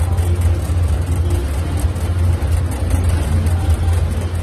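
Boat engine running at a steady speed, a loud, even low drone with a noisy wash above it.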